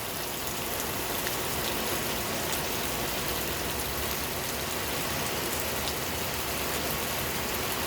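Steady rain shower falling and pattering on surfaces as a cold front passes, an even hiss without a break.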